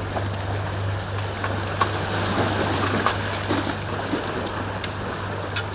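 Scattered clicks and crinkles of litter and plastic rubbish bags being handled among stones, over a steady low hum and a haze of outdoor noise.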